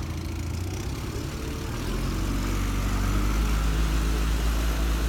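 Boat engine running with a steady low hum that grows louder about two seconds in.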